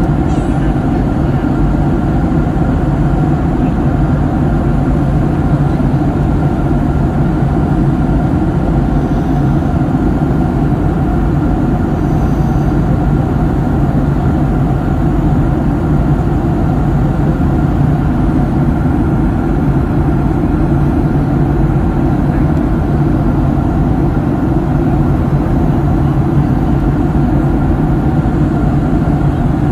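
Steady cabin noise inside a Boeing 737 airliner in flight: an even, low rumble of the jet engines and rushing air, unchanging throughout.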